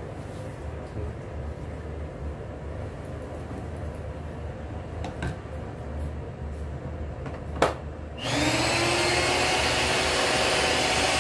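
Faint handling ticks, a sharp click, then about eight seconds in an electric stand mixer's motor starts, its whine rising briefly as it spins up, and runs steadily, its beaters whirring through chocolate cake batter in a stainless steel bowl.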